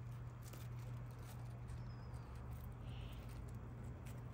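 Faint crunching footsteps on loose gravel, from the walker and a small leashed dog moving over the stones, over a steady low hum.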